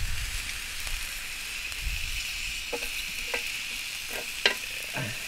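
Whole jackrabbit sizzling on a cast-iron griddle over a wood fire, a steady hiss, with a few light clicks and taps as metal tongs turn the meat, the sharpest about four and a half seconds in.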